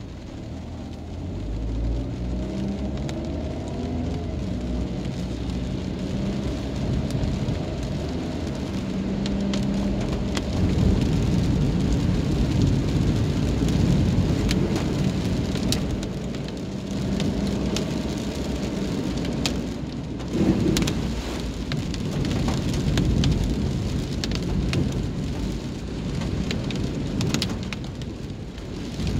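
Rain falling on a car's windshield and body, heard from inside the cabin, with the hiss of tyres on wet asphalt and a low engine hum; individual drops tick on the glass. It grows louder about two seconds in as the car gets moving.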